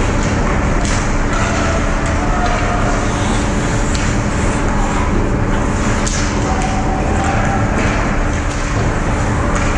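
Ice hockey play close to the goal: skates scraping and sticks and puck knocking every second or two over a steady low rumble, with faint shouts.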